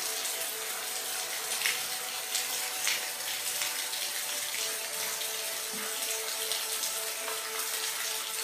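Steady rain falling, an even hiss with scattered sharper drop splashes.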